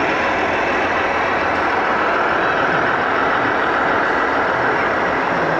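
Steady din of a busy exhibition hall mixed with the truck-engine sound of radio-controlled model trucks.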